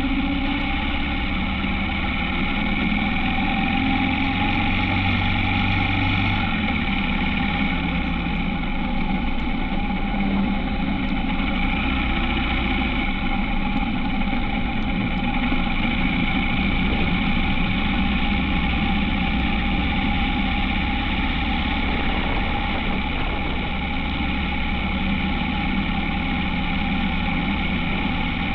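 Honda H'ness CB350 motorcycle's single-cylinder engine running steadily while riding, its note shifting slightly about six seconds in.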